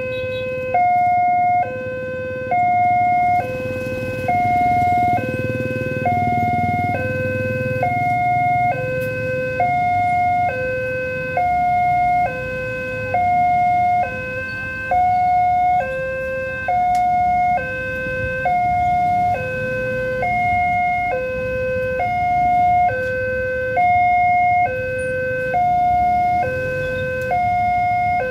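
Railway level-crossing electronic warning alarm sounding a steady two-tone signal, a lower and a higher tone alternating a little under once a second, which warns that a train is approaching while the barriers come down.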